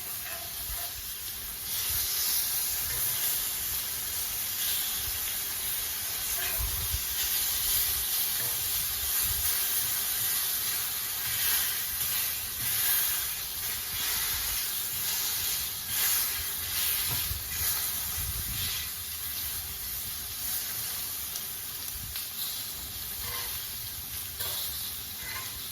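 Breakfast food frying on a hot Blackstone flat-top griddle, sizzling steadily with a continuous hiss.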